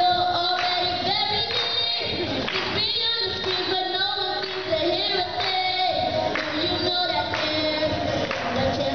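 A group of children singing a pop song together over recorded backing music, amplified through a handheld microphone.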